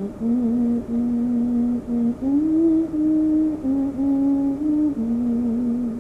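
A person humming a slow, wordless melody: a string of held notes that step up and down, with short breaks between them.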